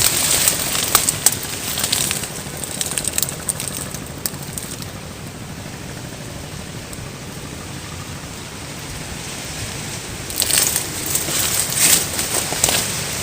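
Intermittent crackling and rustling noise, with clicks. It is loud in the first few seconds and again from about ten seconds in, with a quieter steady hiss between.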